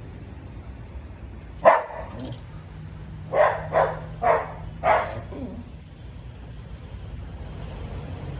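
A dog barking: one bark about a second and a half in, then four barks in quick succession a couple of seconds later, over a steady low hum.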